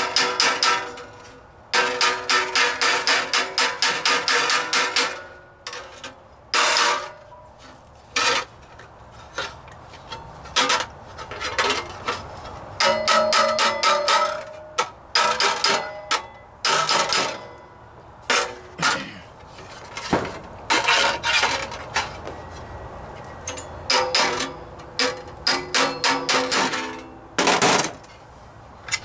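Hammer striking a sheet-steel floor-pan patch over a block in a vise, tapping a stiffening bead into the metal by hand. Fast runs of blows at about four a second at first, then slower single blows, each with a short metallic ring.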